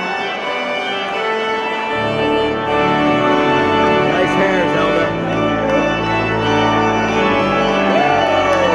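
Church organ playing held chords, with deep bass notes coming in about two seconds in.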